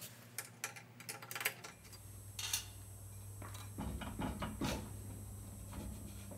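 Faint metallic clicks and clinks of hand tools and small nuts on the steel top of a Dwarf 5 kW wood stove as its flue flange is unbolted, with a few duller knocks about four seconds in.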